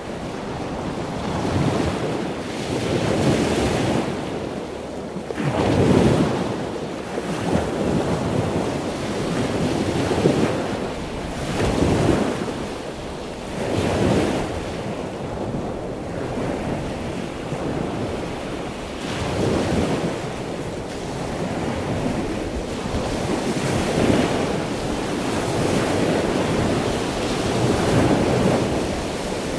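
Ocean surf ambience: a continuous wash of water noise that swells and ebbs every few seconds, like waves rolling in.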